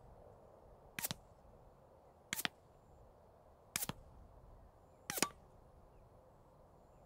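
Four suppressed shots from a Beretta 92FS 9mm pistol fitted with a CGS Group Kraken 9 suppressor, firing 165-grain subsonic ammunition. The shots are short and sharp, about a second and a half apart.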